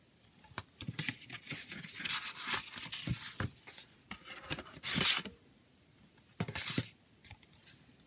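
Cardboard CD sleeves and discs handled: rustling and scraping of card with small clicks, loudest about five seconds in, then one shorter rustle a little later.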